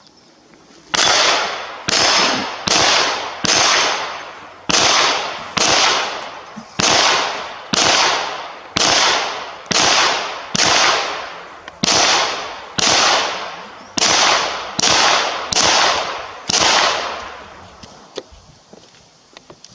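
Gunshots at a shooting range: a steady string of about eighteen shots, roughly one a second, each followed by a trailing echo, stopping near the end.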